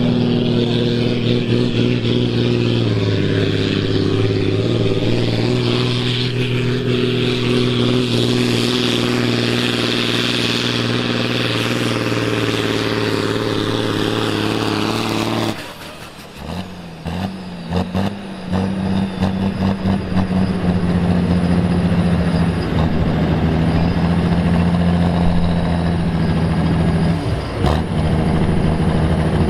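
Diesel tractor engine at full throttle under heavy load while pulling a weight sled, its note dipping slightly about 3 s in as it is loaded down. About halfway through the sound changes abruptly to a Valmet 905 tractor's diesel running at lower speed, revved briefly a few times and then held steady.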